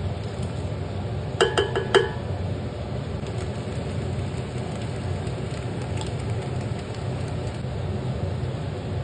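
Metal cookware clinking: three or four quick ringing clinks, like a utensil knocking a steel pot, about a second and a half in, over a steady low rumble.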